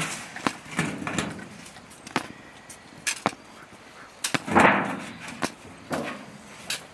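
About a dozen irregular sharp knocks and clacks, with a louder half-second rush of noise a little past halfway.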